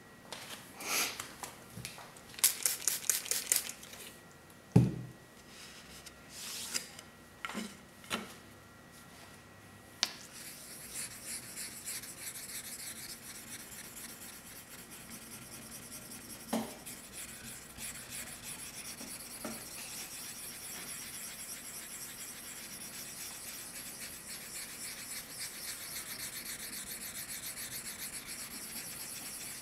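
Scattered handling sounds for the first ten seconds: a quick run of about eight short clicks, then a single thump about five seconds in. From about ten seconds in, a small stone is rubbed rapidly back and forth over the wet face of an Okudo suita natural whetstone in a steady scrubbing rasp, raising a slurry on the stone before sharpening.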